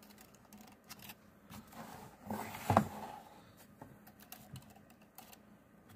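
Small clicks and taps of hands handling a flat ribbon cable and the plastic computer frame, with one louder knock about three seconds in.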